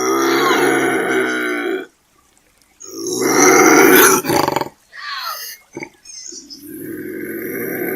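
Bobcat screaming: a string of loud yowling calls. One lasts about two seconds, then a louder one turns rough and rasping near its end, a couple of short cries follow, and a lower, drawn-out yowl starts in the last two seconds.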